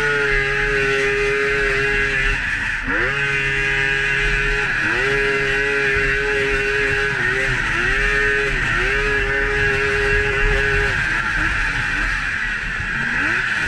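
Polaris XCR 800 snowmobile's three-cylinder two-stroke engine running hard under load on a hill climb. Its held high note drops and climbs back again several times as the throttle is eased and reopened, then thins out near the end, over a steady hiss.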